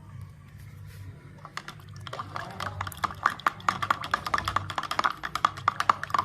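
A spoon stirring sliced shallots and salt into warm water, clinking quickly and repeatedly against its container, the taps growing louder and more frequent from about two seconds in.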